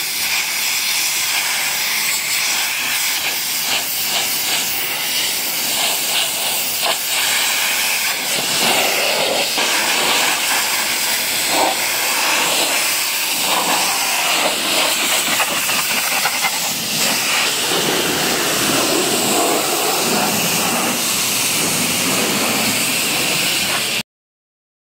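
High-pressure washer spray hissing steadily as water is jetted onto a car's rear glass and tailgate, rinsing off the soap foam. The spray sound grows fuller after about eight seconds and cuts off abruptly just before the end.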